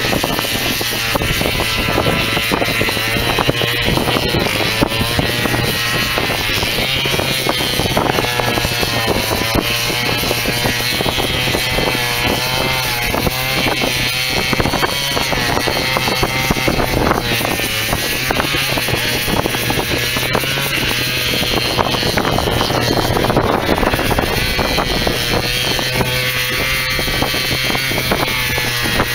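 A small gasoline engine runs continuously while cutting the sea ice for a channel, its pitch wavering with the load, over a steady low hum.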